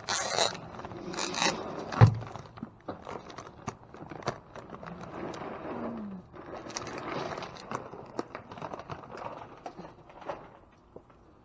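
Plastic bags and packaging rustling and crinkling as they are handled, with scattered clicks and one sharp thump about two seconds in.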